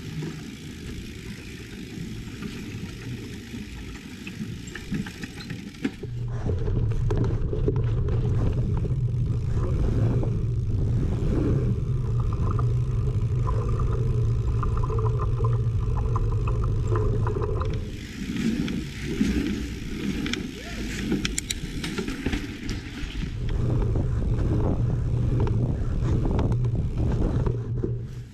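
Lapierre Zesty mountain bike ridden along a dirt trail: tyres rolling and the bike rattling and clicking over bumps, under a low rumble of wind and tyre noise on the camera microphone. The rumble is loudest from about six seconds in to about eighteen, and again near the end.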